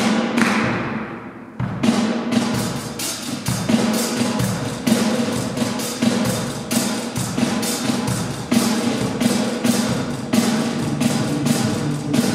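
Live ensemble improvisation led by a drum kit: one loud hit dies away, and from about a second and a half in a steady run of sharp drum strikes, a few a second, plays over a held low note.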